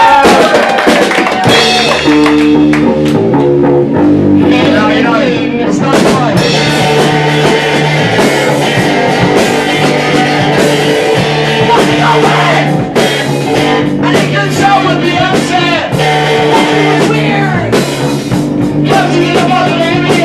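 Live rock band playing a song with guitar and drums, a singer's voice gliding in and out at times.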